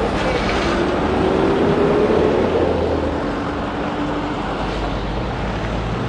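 Trucks and other vehicles passing close by on a highway, with engines running and road noise. One engine's pitch rises for a couple of seconds as it pulls away.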